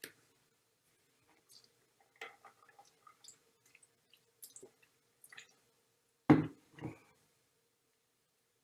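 Small scattered clicks and ticks over a faint steady hum, picked up by an open microphone on a video call; about six seconds in, two louder short noises half a second apart, the first the louder.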